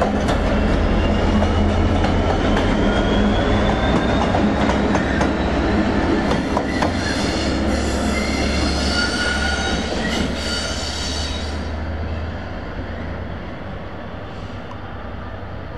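Two Class 66 diesel locomotives running light engine, the low drone of their two-stroke V12 engines passing close and then drawing away. From about six to eleven seconds in, a high metallic squeal of wheel flanges rings out as they take the curves. The sound fades toward the end.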